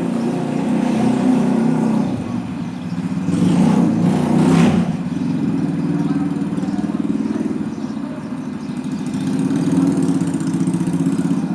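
Steady low machine hum, with a short hiss about four and a half seconds in.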